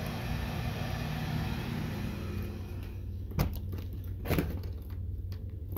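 A steady mechanical hum with a hiss over it, which drops away about three seconds in, followed by two sharp knocks about a second apart.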